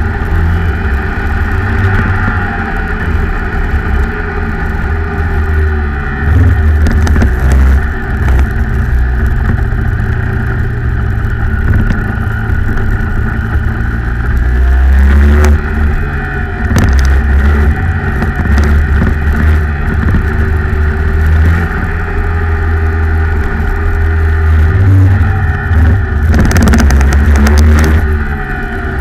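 Rotax Max 125cc single-cylinder two-stroke kart engine running hard at racing speed, heard on board. Its pitch rises on the straights and drops when the driver lifts off for corners, over a constant low rumble.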